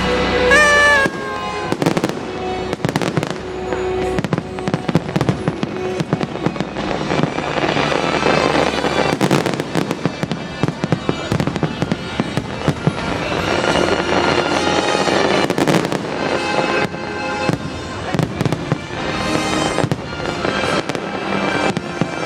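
Fireworks going off in many quick, irregular cracks and bangs over loud show music.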